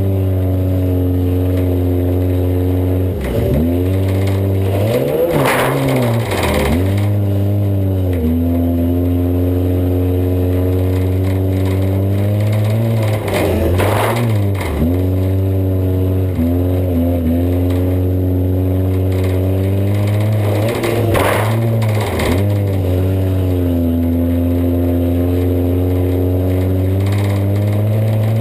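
A 1988 Honda Civic's four-cylinder engine running hard, heard from inside the cabin. Its pitch climbs and drops back several times as the throttle is lifted and reapplied. Short clattering bangs from the body come about five, fourteen and twenty-one seconds in.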